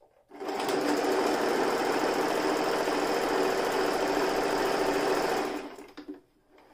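Toyota Jeans JS021 electric sewing machine running at a steady speed, stitching through fabric; it starts just after the beginning and stops about a second before the end.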